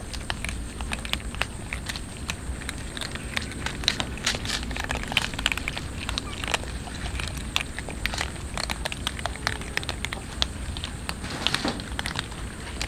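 Several cats crunching dry kibble together, a dense, irregular crackle of many small crunches.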